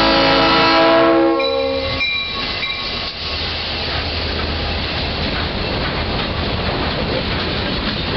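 Diesel freight locomotive's air horn blowing a steady chord at close range, cutting off about a second and a half in. Then the locomotive and boxcars roll past close by with a dense rumble and wheels clacking over the rails.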